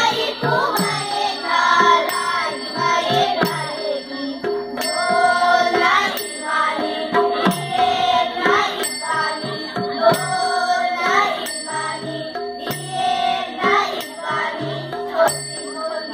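Voices singing a chant-like song to a hand-played, strap-laced barrel drum, with small metal cymbals ringing at a steady, even beat.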